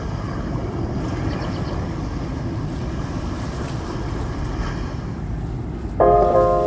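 Steady low rumble of wind buffeting the microphone. Background music comes in near the end.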